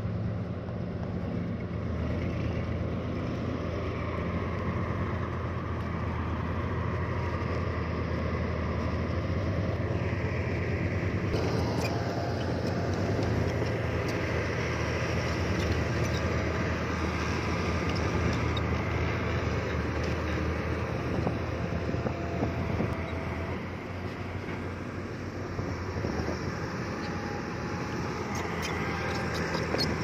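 Diesel engines of heavy earthmoving machinery running steadily with a low hum. About eleven seconds in, a brighter layer of machine noise joins.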